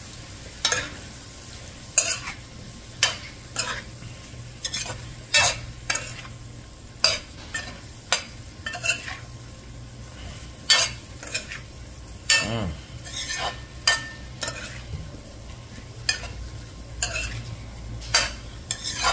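Metal spoon stirring curried chicken egg bag in a large metal pot, scraping and knocking against the pot in irregular strokes about once or twice a second, over a low steady hum.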